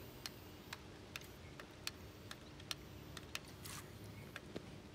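Faint, irregular sharp clicks, roughly two or three a second, over a faint steady hum, with a brief hiss about three and a half seconds in.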